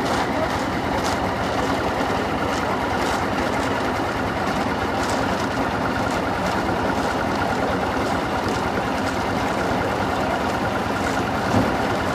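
A heavy engine running steadily under load, with faint light scrapes or clinks recurring about once a second.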